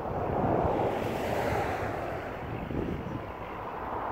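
Wind buffeting the microphone: an uneven rushing rumble that swells about half a second in and keeps rising and easing.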